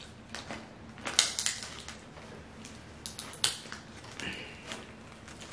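Crab-leg shells being cracked and broken open by hand and teeth: a series of sharp cracks and crunches, in a cluster about a second in and again about three seconds in.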